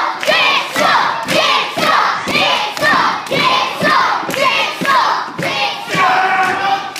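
Wrestling crowd, many of them children, chanting and shouting in an even rhythm of about one shout every two-thirds of a second, with a longer held call near the end.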